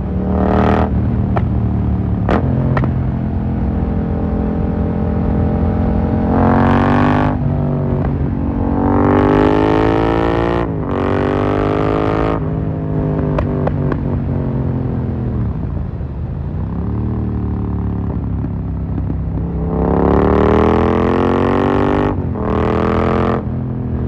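Yamaha MT-07's parallel-twin engine through an Akrapovic carbon full exhaust, accelerating hard several times: the revs climb steeply and break off at each gear change, then fall away for a while midway. A few sharp exhaust pops crack out as the throttle closes, near the start and after the middle run of gears.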